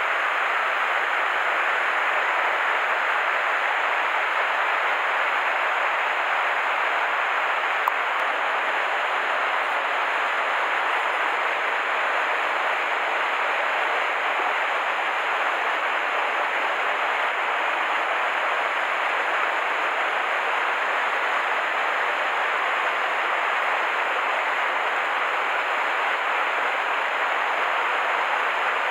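River water rushing steadily, an even, unbroken rush with no change in level.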